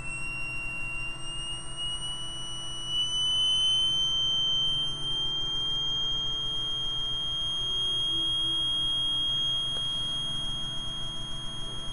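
High-pitched whine from a Royer-oscillator (Joule-thief) LED driver's nanoperm transformer cores, its pitch gliding slowly upward for several seconds and then holding steady as the supply voltage is raised to 14 volts.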